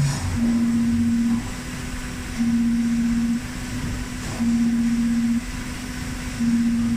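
Cylinder flanging machine running as it rolls the edge of a stainless steel cylinder: a steady low hum that swells louder for about a second every two seconds.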